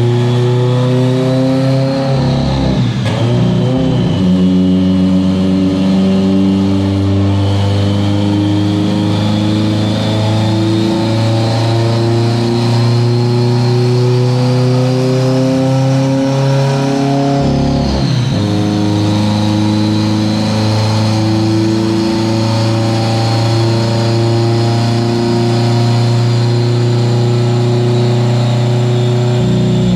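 A car engine running steadily under load, its pitch drifting slowly; twice, about three seconds in and again around eighteen seconds, the engine speed dips sharply and climbs back.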